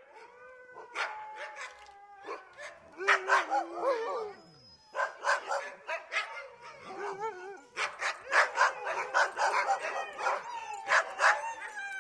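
Dog whining in long, drawn-out whines for the first couple of seconds, then bouts of short, sharp barks and yips mixed with whimpers.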